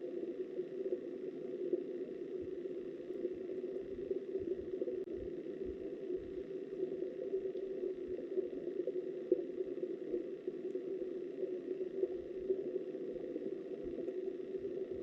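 Steady, muffled rush of river water heard from underwater, with a few faint low thumps.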